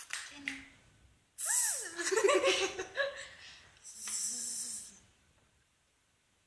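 Two bursts of odd hissing, snorting noises. The first carries a squeal that swoops down in pitch. Both stop about five seconds in.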